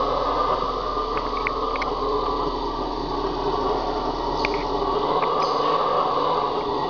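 Red howler monkeys roaring in a continuous chorus, a steady dense roar with no pauses, with a few short high chirps over it.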